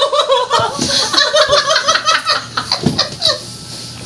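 Two women laughing hard together in rapid, choppy bursts, fading a little near the end.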